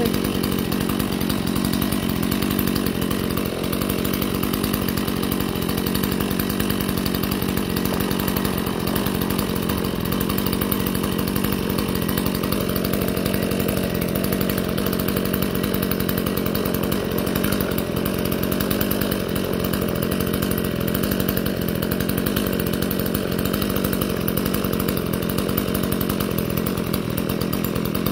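Stihl two-stroke chainsaw engine running steadily at an even speed, without cutting.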